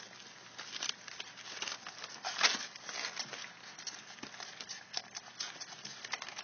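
Three-week-old pit bull puppies nursing from their mother: irregular wet smacking and suckling clicks with some rustling, one louder click about two and a half seconds in.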